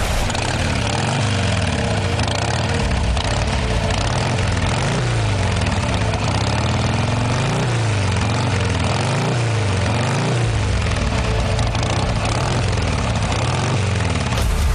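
Loud droning sound effect from the performance's backing track: a dense rushing noise with slow pitch sweeps rising and falling over and over. It cuts off right at the end.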